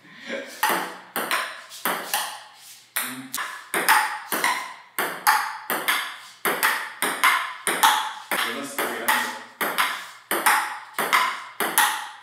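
Table tennis rally: the celluloid ball clicking off the paddles and bouncing on the table in quick alternation, about two sharp pocks a second.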